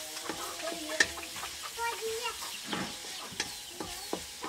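Chopped onions sizzling in hot oil in a metal karahi while a wooden spatula stirs and scrapes them, with sharp clacks of the spatula on the pan, the loudest about a second in. A chicken clucks in the background.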